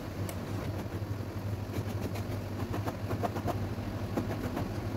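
Soft rustling and scattered light taps of sofa cushions being handled and dusted, over a steady low hum.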